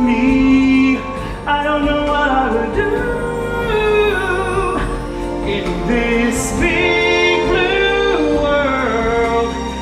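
Show-tune singing over an orchestral backing track, the voices holding long notes and sliding between them.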